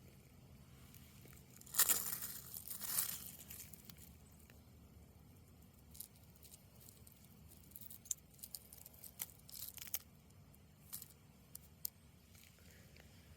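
Faint, steady low rumble of a distant ship. About two seconds in there is a loud crunching rustle, and later come scattered small crackles and clicks.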